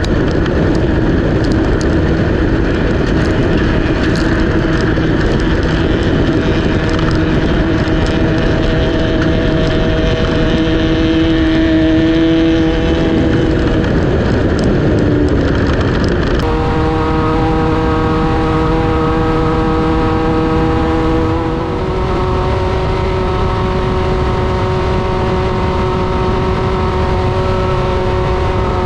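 Class 1/2-1600 off-road buggy's air-cooled VW 1600 flat-four running hard at a steady pitch over heavy terrain and chassis noise, with scattered knocks and clatter. The engine note changes abruptly about halfway through, then holds steady again.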